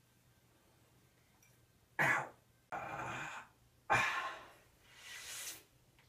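A man's coughs and hard breathing: a sharp cough about two seconds in, a rough breath, a second sharp cough, then a long breath that swells and fades near the end.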